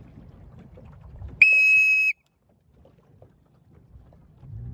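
One loud whistle blast, a steady high tone lasting under a second, about a third of the way in, the coach's signal to tack. Around it, light wind noise on the microphone, which stops right after the blast and picks up again near the end.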